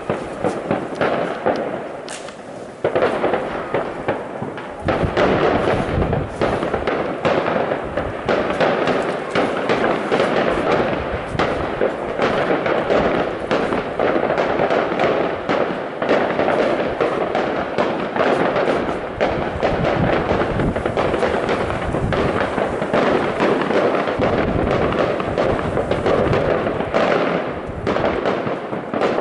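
Many fireworks and firecrackers going off at once in a dense, continuous crackle of bangs, with a brief lull about two seconds in.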